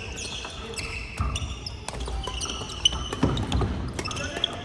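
Badminton rackets sharply hitting shuttlecocks, with squeaking shoes and thudding footsteps on a wooden sports-hall floor. The loudest hit comes about three seconds in.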